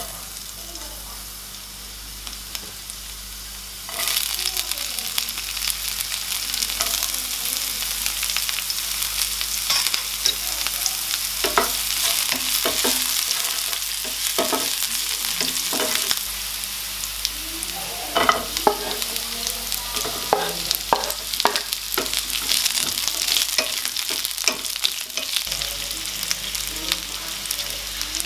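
Minced garlic and other chopped aromatics sizzling in hot oil in a nonstick pan, stirred with a wooden spatula that knocks and scrapes against the pan. The sizzle is quieter at first and jumps louder about four seconds in.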